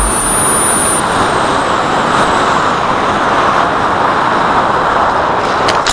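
Steady rush of wind and propeller noise picked up by an FPV flying wing's onboard camera in fast, low flight, with a thin high motor whine in the first second that fades away. The sound cuts off suddenly at the end.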